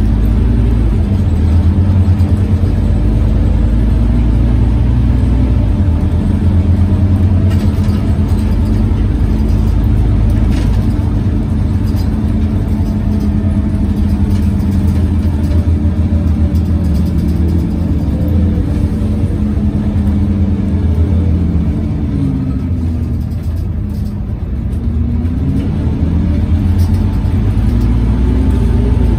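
Scania OmniCity city bus heard from inside during a ride, dominated by the engine cooling fan's steady loud drone, which nearly covers the engine. About three-quarters through, the pitch falls and the sound eases briefly, then the pitch rises again as the bus picks up speed.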